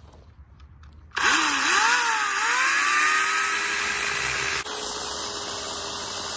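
Craftsman 12-amp corded electric chainsaw starting up suddenly about a second in. Its electric motor and chain whine dips and recovers in pitch as the chain bites into a tree limb, then runs steadily through the cut.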